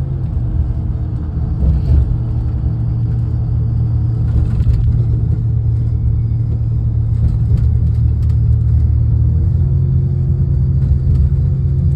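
Steady low drone and road rumble of a road vehicle cruising at speed, with its engine hum stepping up slightly in pitch about nine and a half seconds in and a few light rattles.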